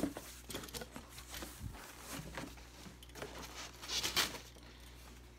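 Cardboard box flaps and a foam shipping-cooler lid being handled and pulled open: scattered rustles and scrapes, the loudest about four seconds in.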